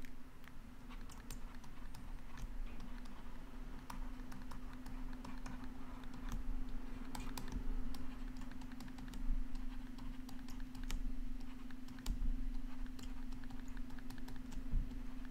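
Stylus tapping and clicking on a tablet screen while handwriting, a string of irregular light clicks over a steady low electrical hum.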